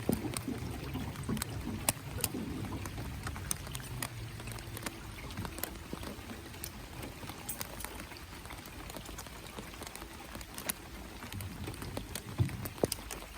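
Light rain: scattered drops ticking irregularly, over a low rumble during the first few seconds.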